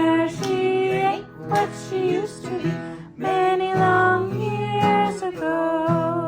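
Background song with guitar and a singing voice holding long notes.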